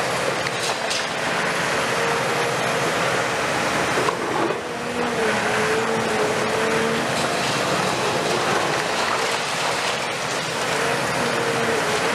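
Cat 340F UHD long-reach demolition excavator working, its Cat C9.3 diesel engine and hydraulics running under load with a wavering whine, while its demolition attachment breaks and tears concrete from the upper floors and rubble falls. There is a sharp knock about four seconds in.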